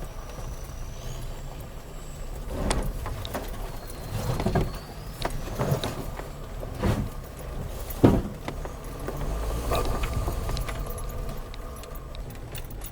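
Land Rover Freelander 2 crawling over rough ground: a low engine rumble with a series of irregular knocks and bumps as the car jolts over rocks, the loudest about eight seconds in.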